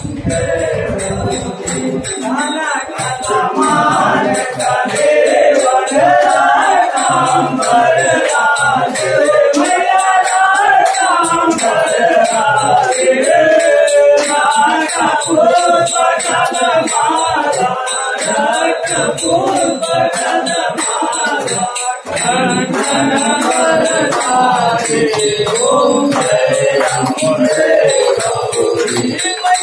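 Hindu devotional puja song sung by voices over a steady jingling, rattling beat of hand percussion, growing louder over the first few seconds.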